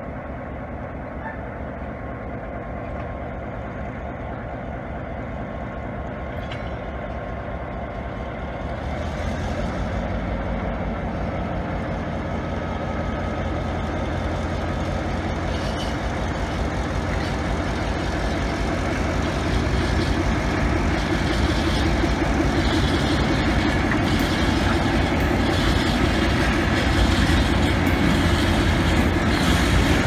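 NOHAB diesel locomotive's EMD 567 two-stroke V16 engine throttling up as it pulls away with a freight train. The engine sound grows louder in two steps, about a third and two-thirds of the way through, as the locomotive draws closer.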